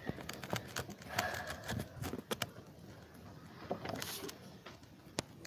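Typing on a computer keyboard: irregular sharp key clicks and taps.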